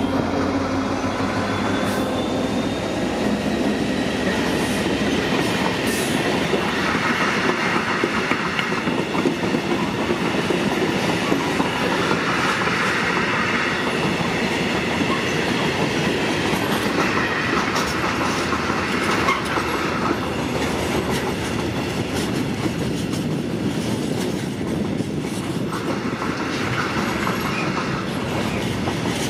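Freight train passing close: the diesel engine drone of its leading Euro Cargo Rail Class 66 locomotives dies away in the first second or two. After that, loaded freight wagons roll steadily past with wheel-on-rail rumble, clatter and a high wheel squeal at times.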